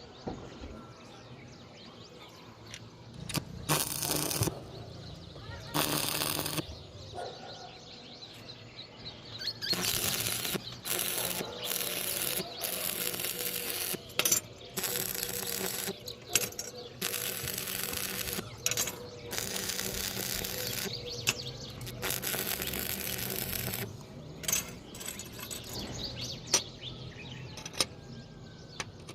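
Metalworking noise: two short bursts of harsh noise, then a long stretch of it starting about ten seconds in with brief breaks, and sharp metallic clinks in between.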